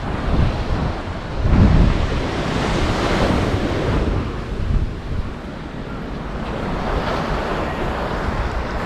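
Sea waves washing onto the beach, with wind buffeting the microphone in low gusts near the start and again about a second and a half in.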